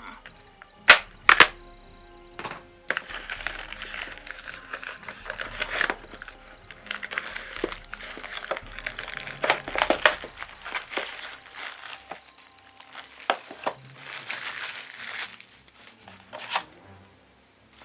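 Packaging crinkling and rustling as the cake-mix package is handled and opened, with two sharp clicks about a second in. Background music underneath.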